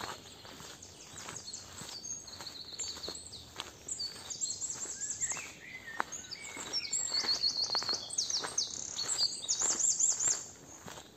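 Several songbirds singing at once: high chirps and fast runs of repeated notes that overlap, growing busier and louder through the second half.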